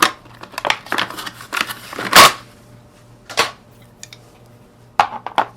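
Steel tongue-and-groove pliers being handled, giving a run of sharp metal clicks and clacks. The loudest comes about two seconds in, another about a second later, and two more close together near the end.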